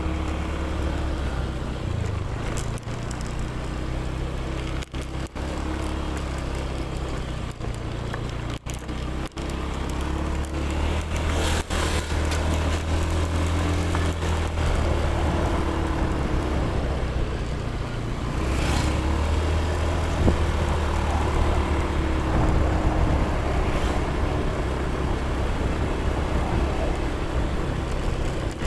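A motor vehicle engine running steadily with road noise and a low, continuous hum.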